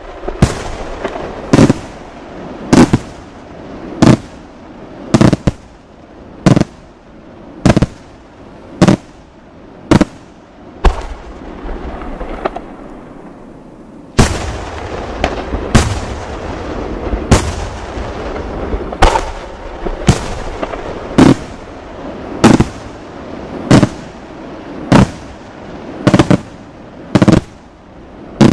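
Aerial firework shells bursting in a steady sequence: sharp reports about once a second, with crackling and rumbling between them. After a short pause in the reports about halfway through, a sudden loud burst brings in a denser rumble and crackle, and the reports carry on over it.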